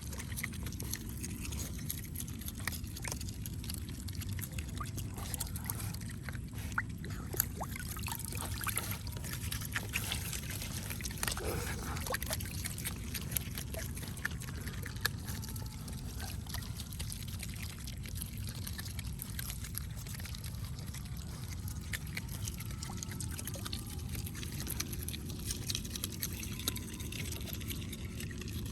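Water trickling and pouring steadily, with scattered small clicks and splashes.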